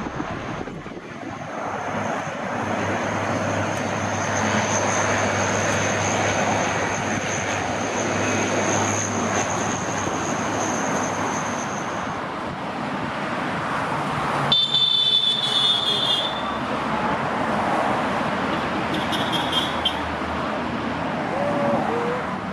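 Fast road traffic passing on a dual carriageway: cars rushing by with tyre and engine noise that swells and fades as each one goes past. A brief shrill sound comes about two-thirds of the way through.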